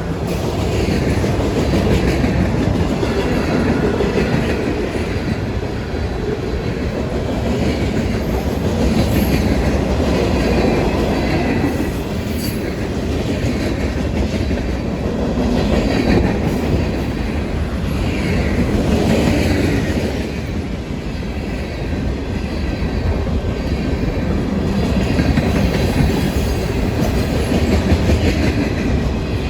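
Freight cars of a passing freight train rolling by, their wheels clacking over the rail joints in a steady, swelling rumble. Wind buffets the microphone throughout.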